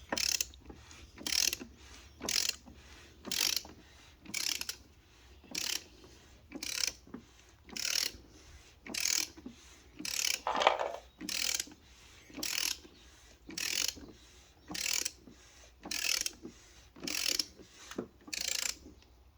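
Digital torque wrench ratcheting in short back-and-forth strokes, about one a second, as a part is tightened toward its 25 Nm setting.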